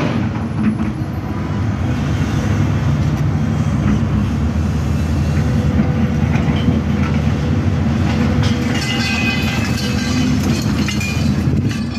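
Hidromek 310 LC crawler excavator's diesel engine running steadily under hydraulic load as the machine swings and digs. In the last few seconds the bucket scrapes and clatters through broken concrete rubble.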